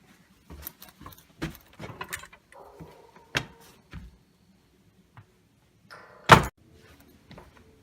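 A run of scattered knocks and clicks, with one loud bang about six seconds in.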